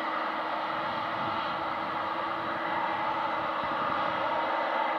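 Jet airliner engines running steadily as the aircraft taxis, a dense even roar that grows a little louder in the second half.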